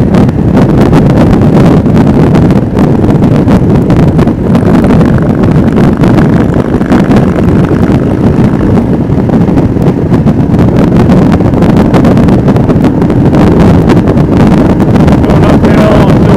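Steady wind noise on the microphone over a Royal Enfield Himalayan's single-cylinder engine running at highway speed.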